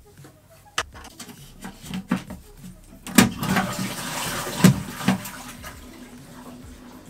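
Toilet with an in-wall concealed cistern flushing: a few clicks, then a sudden rush of water about three seconds in that runs for a couple of seconds and fades away.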